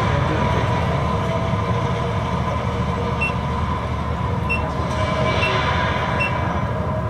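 Steady low rumble and rushing noise inside a high-speed elevator cab climbing One World Trade Center, with a constant hum and a few short high pips about a second apart.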